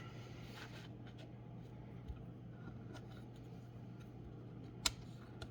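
Faint handling of plastic connectors in a laser-cut solder jig, with one sharp click about five seconds in, over a steady low hum.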